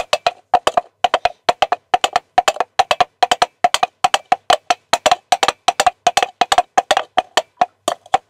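Foley horse hooves made with coconut shells struck on a hard surface: a steady galloping run of sharp hollow clops, several a second, imitating a horse trotting along a tar road.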